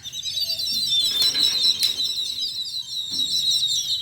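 A flock of small birds chirping, with many quick high chirps overlapping at once.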